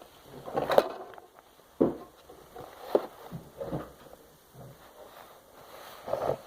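Handling noise: a few light knocks and rustles spaced out over several seconds.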